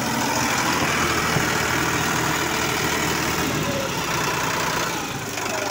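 Sonalika DI-47 RX tractor's diesel engine running steadily at raised revs while the power steering is turned, working the freshly resealed steering cylinder. The level eases slightly near the end.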